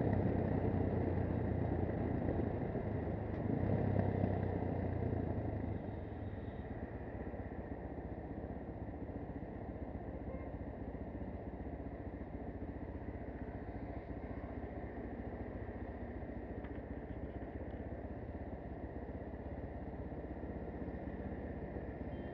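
AKT 250 Adventour (Zongshen RX3) motorcycle's single-cylinder engine running as the bike rolls to a stop, then idling steadily from about six seconds in.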